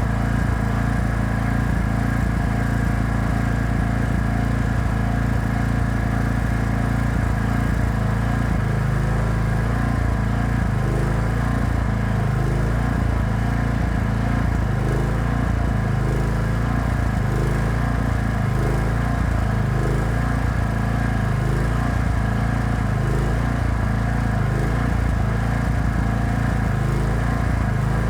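Small generator engine running steadily, powering a welding machine, with a slow, regular wavering in its tone under once a second.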